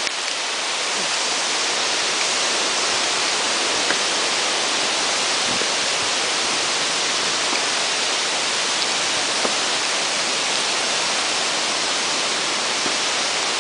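Waterfall rushing: a steady, unbroken hiss of falling water, with a couple of faint taps.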